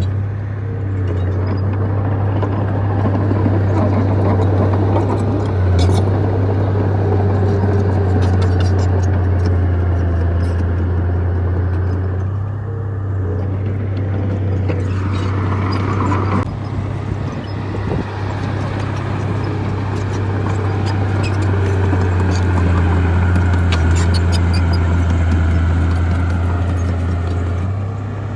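Bulldozer's diesel engine running steadily under load, with scattered clanks and clicks from the machine working, and a brief rising whine about halfway through.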